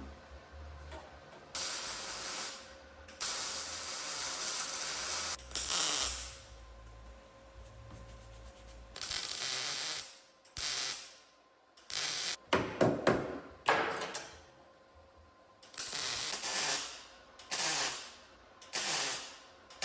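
Auto body repair tools working in short, separate bursts of rasping noise, each a second or two long, with a quicker run of short rattling strokes around the middle.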